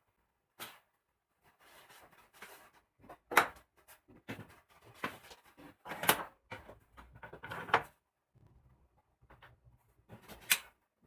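Irregular knocks and clunks, like things being handled and set down, with rustling between them. About six sharper hits stand out, the loudest a little over three seconds in, about six seconds in, and near the end.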